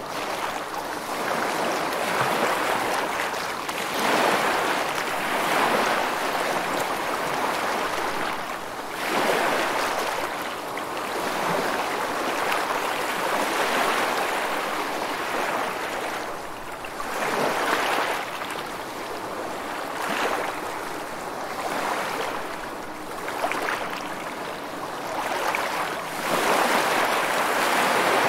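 Sea surf washing continuously: a rushing hiss of water that swells and eases irregularly every few seconds as waves break.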